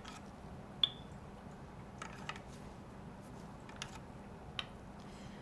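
A few faint clicks and taps of plastic cuvettes being set down and slotted into a SpectroVis spectrophotometer. One sharper click comes about a second in, with a short high ring after it.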